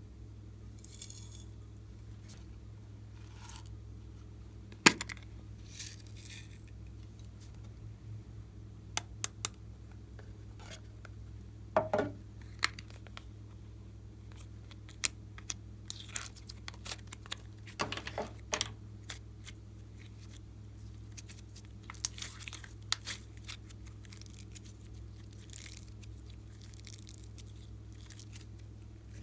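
Slime being handled and mixed by hand: scattered sticky crackles, clicks and a squelch about twelve seconds in, over a steady low hum.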